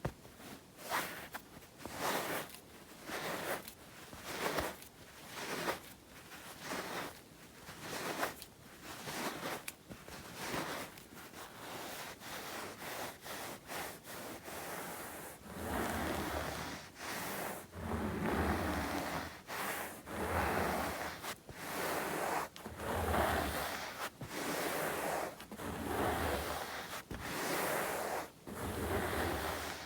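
Palms rubbing and rustling together close to the microphone in repeated swishes, a little more than one a second at first, then longer and fuller strokes from about halfway.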